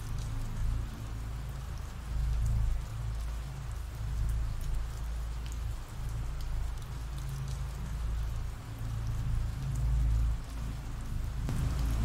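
Ambient rain sound effect: steady rainfall hiss with fine drop patter, over a low rumble that swells and fades a few times.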